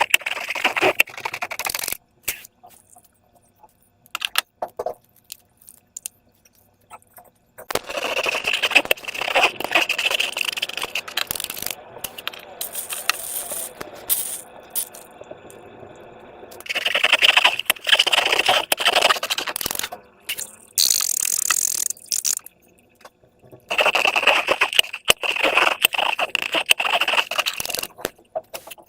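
Slime being worked by hand, wet crackling and clicking in spells of a few seconds with quiet gaps between.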